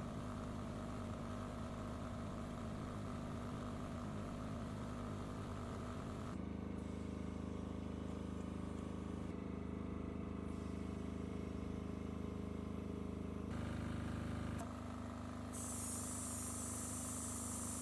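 Diesel generator running steadily under load while powering a heavy-duty air compressor, a continuous machine hum that changes abruptly several times. A steady high hiss joins for the last couple of seconds.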